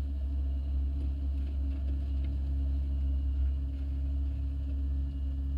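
Small engine of a railroad speeder (track motorcar) running steadily, a low drone with a steady hum.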